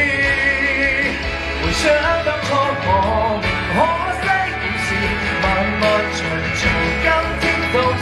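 Live pop ballad: a man singing long held notes with vibrato into a handheld microphone over the accompanying band music, with one sliding run up in pitch near the middle.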